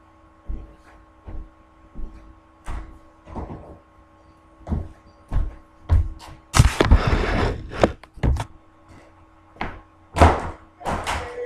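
Footsteps and knocks on a bare wooden floor, uneven and spaced out, with a scuffing noise lasting about a second roughly six and a half seconds in. A faint steady hum runs underneath.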